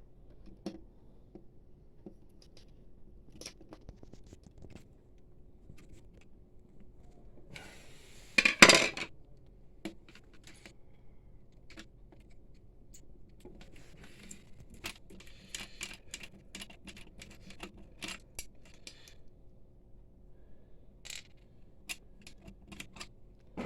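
Small metallic clicks and light scraping as screws are taken out of the printer's metal chassis with a screwdriver, with one loud metal clatter about eight seconds in.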